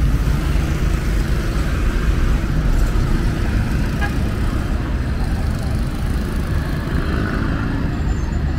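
Steady city road traffic: cars and other vehicles running and passing on a nearby road, with no single vehicle standing out.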